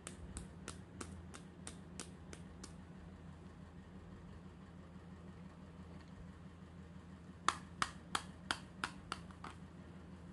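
Hard plastic clicks from a toy doctor-kit piece worked by hand: a run of about eight quick clicks at the start and another, louder run of about eight near the end, three to four a second, over a faint steady low hum.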